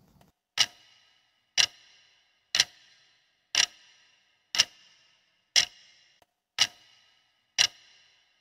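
Clock-tick sound effect marking a countdown timer: a sharp tick once a second, eight in all, each with a short ringing tail.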